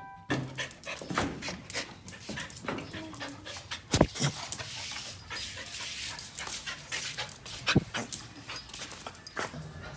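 A dog panting among scattered light clicks, with two sharp knocks, about four and eight seconds in.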